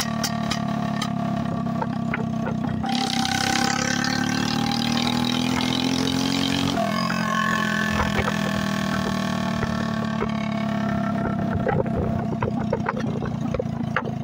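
Motorcycle riding with its silencer removed and a bend pipe fitted, the open exhaust loud. About three seconds in the engine note climbs as it pulls, then drops suddenly near seven seconds and runs steady again.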